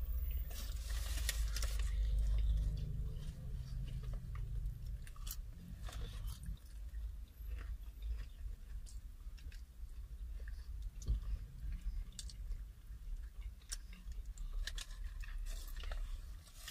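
Close-up chewing and crunching of crispy fried chicken wings, with many short scattered crackles as the coating is bitten and the meat is worked off the bone, over a steady low rumble.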